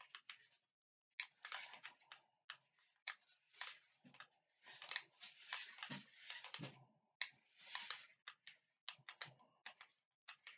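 Faint whirring of a New Bright 1:18 scale Jeep Gladiator toy-grade RC truck's electric motor and gearbox, driven in short, stop-start bursts as the throttle trigger is blipped, with the truck climbing over a foot.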